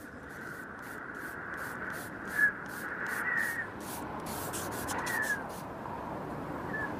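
Scratching strokes on paper, about three a second, stopping around five and a half seconds in. Short high chirps sound over them, the loudest about two and a half seconds in.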